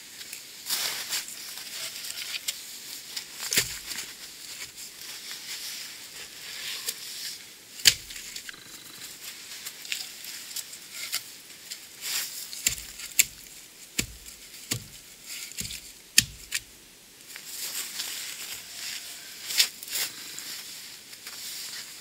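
Wooden logs being set down and knocked against one another as they are stacked into a reflector wall, a scattering of dull knocks several seconds apart, with boots shuffling and crunching in snow between them.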